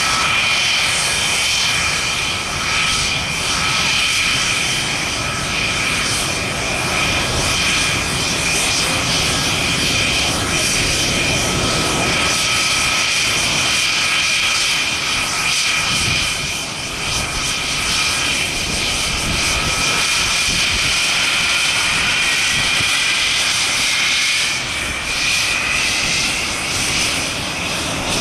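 English Electric Lightning's twin Rolls-Royce Avon turbojets running on the ground: a steady high turbine whine over a jet rumble. Over the last few seconds one whine rises in pitch as the engines spool up.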